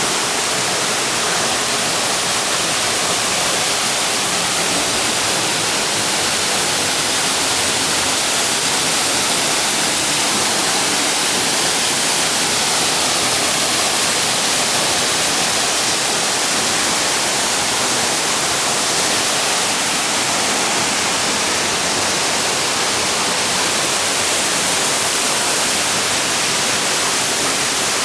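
Waterfall pouring into its pool: a loud, steady rush of falling water.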